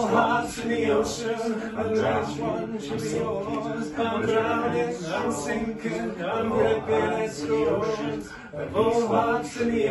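Live folk band music: voices singing over acoustic guitar, with a steady held note underneath.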